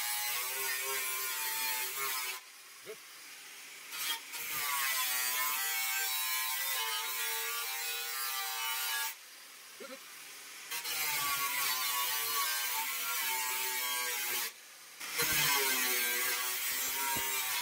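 Angle grinder with a thin cut-off wheel slicing through a sheet-steel repair panel: a high whine over a hissing grind. It cuts in four stretches, stopping briefly three times.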